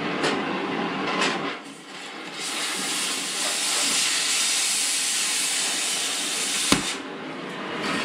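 Cutting torch hissing as it cuts steel. A rough, crackling hiss for the first second and a half gives way to a steady, louder rush of gas for about four seconds, which ends in a sharp pop.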